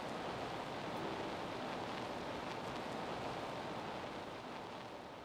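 Steady background hiss of an open recording microphone, with no other sound, starting to fade out near the end.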